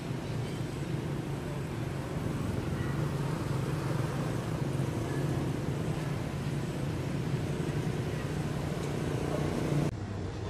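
Steady low rumble with a hiss of outdoor background noise, dropping abruptly in level near the end.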